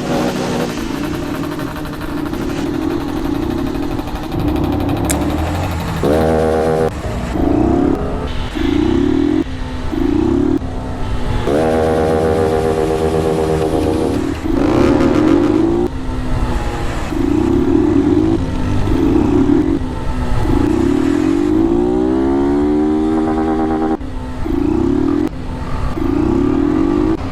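Motorcycle engines revved hard in repeated bursts, some held steady and some sweeping up and down in pitch.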